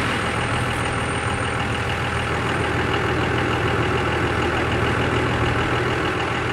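A vehicle engine idling steadily, a constant low hum over a broad hiss.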